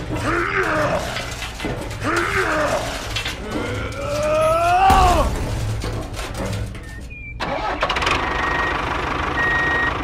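A man's straining groans and grunts, the longest one near the middle rising in pitch, then a steady whirring from a battery-powered toy steam locomotive running on its plastic track.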